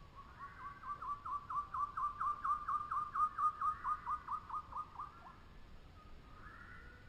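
A bird calling a long run of repeated whistled notes, about four a second, swelling and then fading away about five seconds in. Fainter bird calls follow near the end.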